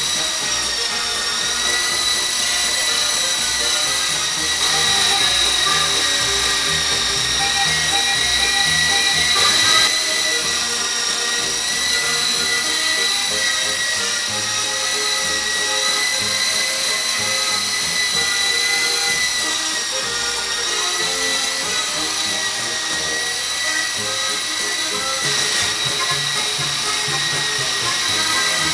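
Electric motors and rotors of an E-Sky Lama v4 coaxial toy helicopter whining steadily while it hovers, the high-pitched whine drifting slightly up and down in pitch as the throttle changes. Music plays underneath.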